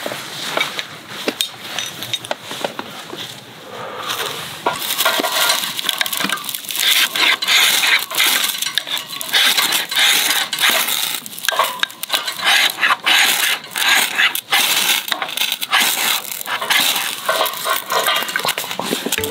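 Ferrocerium rod scraped repeatedly with a striker over a bundle of wood shavings to light them: a fast run of rasping metallic scrapes, sparse at first and much denser and louder from about four seconds in.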